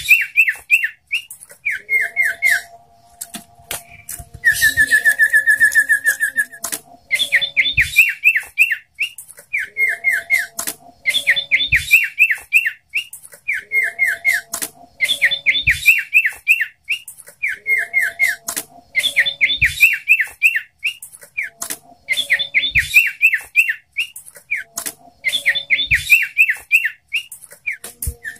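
Common iora (sirtu) singing loudly: short bursts of quick, sharp chirps repeated about every two seconds, with one longer even trill about four to six seconds in.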